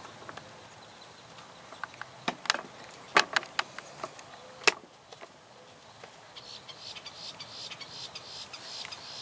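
A few sharp clicks in the first half, then from about six seconds in a high, rapidly pulsing insect buzz.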